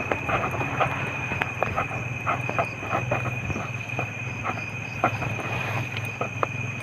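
Crickets at night, one steady high trill, with many irregular short clicks and taps close by from eating a meal.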